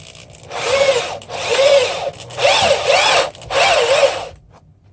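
Power drill running in four short bursts of under a second each, its motor whine wavering up and down in pitch, drilling holes in a thin plexiglass (acrylic) sheet clamped over wood.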